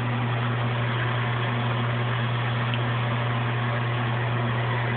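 A steady low machine hum over an even hiss, unchanging throughout.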